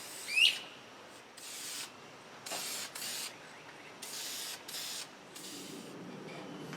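Aerosol can of spray polyurethane spraying in about six short hissing bursts, each under a second. A brief rising squeak comes just after the start.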